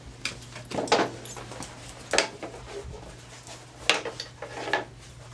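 Four short, sharp knocks or clacks spaced a second or two apart, over a steady low hum.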